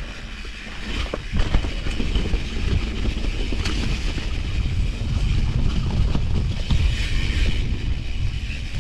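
Vitus Mythique mountain bike ridden over rough trail: a steady low rumble of tyres and frame, with frequent knocks and rattles over roots and rocks, and wind buffeting the microphone.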